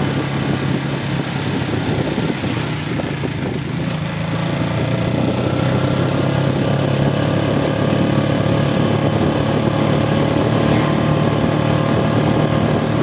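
Benelli Motobi 200 EVO's single-cylinder engine running steadily while riding at a cruise, with wind and road noise.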